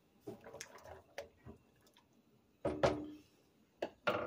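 Wooden spoon stirring pasta in a stainless steel saucepan of water, knocking against the pot in a series of short taps and clunks. The loudest clunks come a little under three seconds in and again near the end.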